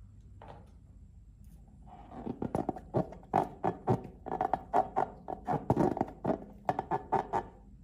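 Slime being worked by hand: a quick series of short sticky pops and clacks, about four a second, starting about two seconds in.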